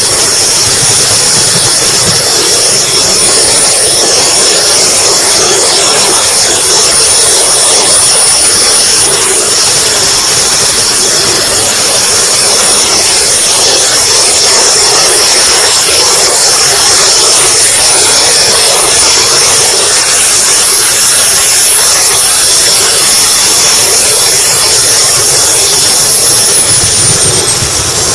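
Turbine engine of an RC model jet in flight, heard from an onboard camera. Its thin, high whine holds steady, steps up slightly about two-thirds of the way through as the throttle changes, and slides down near the end. Loud, steady rushing airflow runs under the whine.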